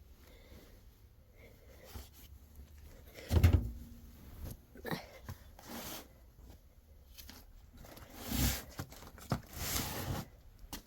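Dry clothes rustling and being handled in short bursts, with one louder thump about a third of the way in.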